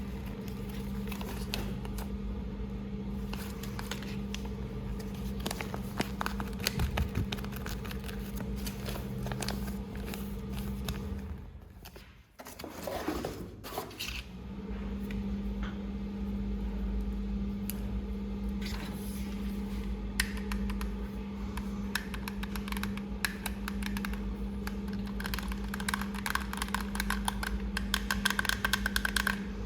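Hard plastic clicking and scraping, many small clicks over a steady electrical hum. The hum cuts out briefly about twelve seconds in.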